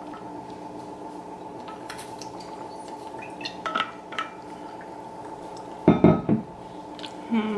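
Insulated metal water bottle being handled: small clicks and knocks from the lid and a drink, then a thump about six seconds in as the bottle is set down on the table.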